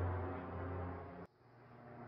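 Airplane engine drone: a low steady hum that fades, cuts off abruptly just over a second in, then swells back.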